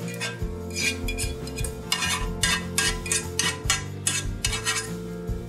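A spoon or spatula scraping and clinking against a metal saucepan as thick gravy is scraped out of it, in quick repeated strokes, over steady background music.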